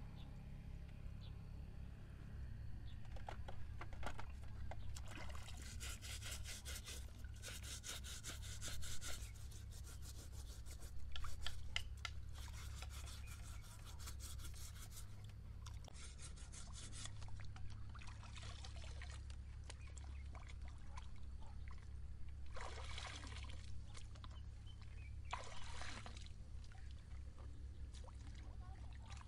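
A fabric sneaker being scrubbed with a hand brush and rinsed in pond water: bouts of rapid brush strokes mixed with splashing and dripping water, over a low steady rumble.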